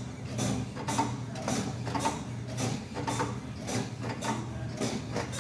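Leg extension machine being worked through a set, its mechanism clicking and rattling about twice a second.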